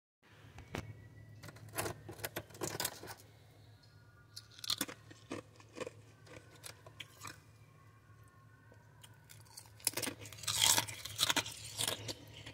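Thin, crunchy freezer frost ice being chewed: irregular crunches, coming in a dense run about ten seconds in. A steady low hum runs underneath.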